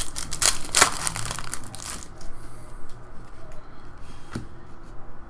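Crinkling and crumpling of a foil trading-card pack wrapper, densest in the first two seconds, followed by a few light clicks of cards being handled.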